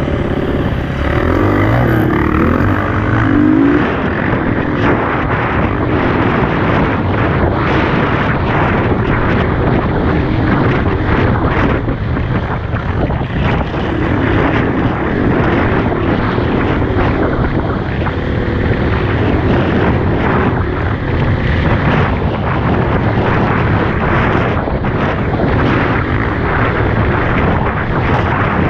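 Dirt bike engine running under way, its pitch rising and falling with the throttle near the start, with wind noise on the microphone and frequent short knocks from the ride.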